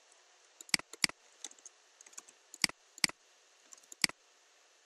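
Computer mouse clicking: a handful of sharp single clicks, some in quick pairs.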